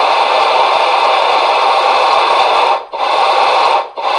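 Steam-locomotive boiler blowdown effect from an ESU LokSound 5 sound decoder, played through the model locomotive's loudspeaker: a loud hiss of escaping steam that breaks off near three seconds in, comes back for about a second, and starts again near the end.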